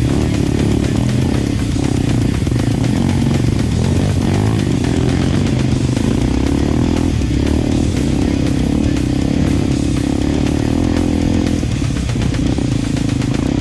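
Dirt bike engine running under load on a trail, its revs rising and falling with the throttle.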